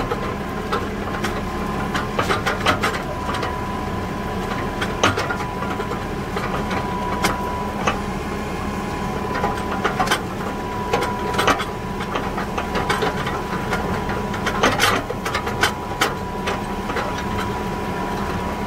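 Fendt tractor running steadily while creeping forward slowly with a grain-bag extractor in tow, a constant high whine over the engine hum. Scattered clicks and knocks run through it.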